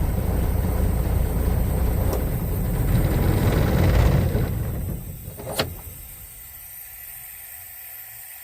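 Old Scania truck's diesel engine running with a heavy low rumble. It swells a little about three to four seconds in, then drops away sharply about five seconds in. A single sharp click comes just after, and a faint low hum remains.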